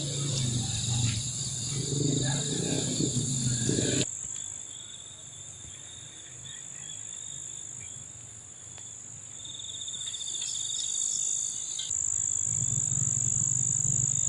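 Rural evening ambience dominated by the steady, high-pitched shrill of insects, with a second pulsing insect call higher in the mix through the middle. A low drone with other rustling sounds is heard for about the first four seconds, drops out abruptly, and returns just before the end.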